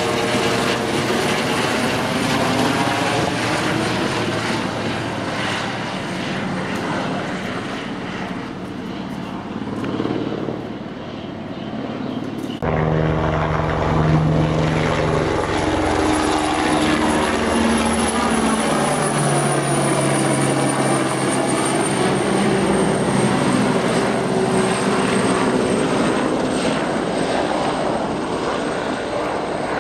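Light helicopter flying low overhead, with its rotor and turbine running and a high steady whine on top. The sound swells and shifts in pitch as it passes, and changes abruptly about twelve seconds in.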